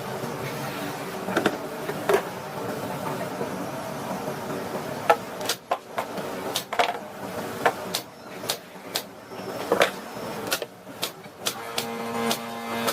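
About a dozen sharp knocks and clacks at irregular intervals over a steady background noise, with a brief steady hum near the end.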